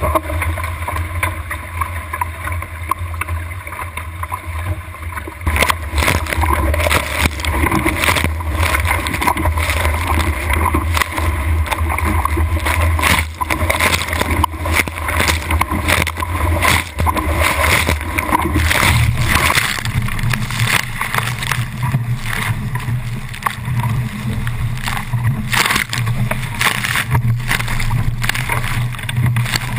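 Wind buffeting a bow-mounted camera on a small sailboat under way, with water rushing past the hull. From about five seconds in, frequent splashes of spray hit the bow and camera.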